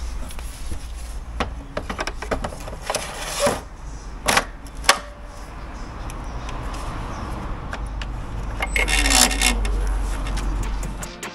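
Clicks and knocks of plastic and metal as a Milwaukee MX Fuel cordless cut-off saw is handled and its battery pack seated, a few sharp ones standing out near the middle. A steady low wind rumble sits on the microphone underneath, with a louder hissy stretch near the end. The saw's motor does not run.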